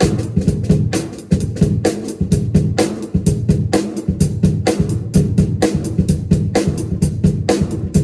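Drum kit played in a steady, busy groove: bass drum and snare strokes, several a second.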